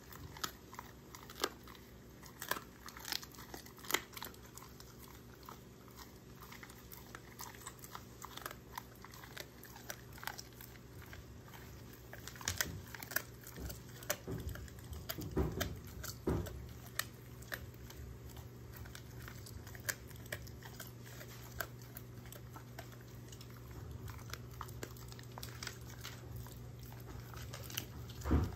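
German shorthaired pointer chewing a treat, with irregular crunches and sharp clicks of her teeth.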